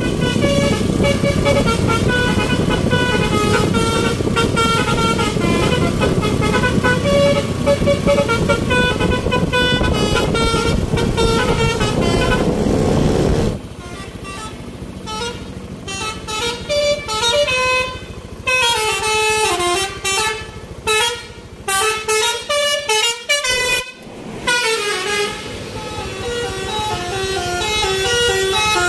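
Basuri 'telolet' bus horn, a multi-tone horn playing melodies in stepped notes over loud engine and road noise. About halfway through, the engine noise drops away and the horn goes on in short bursts of tune with sliding, bending notes.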